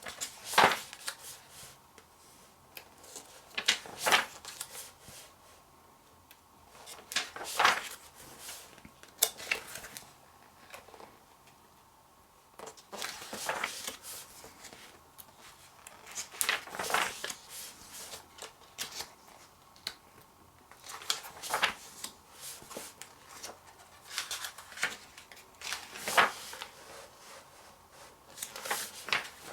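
Glossy magazine pages being turned one by one, each a short papery swish and rustle, about every two to four seconds.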